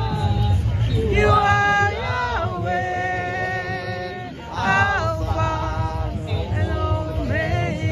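A worship song sung live into a microphone, with long held notes and slides between pitches, over a steady low background hum.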